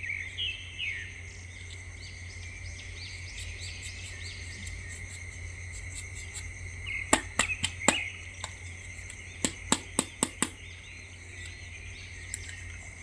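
Outdoor ambience of insects with a steady high-pitched drone and a few bird chirps. Two quick runs of sharp clicks come a little past halfway, louder than the background.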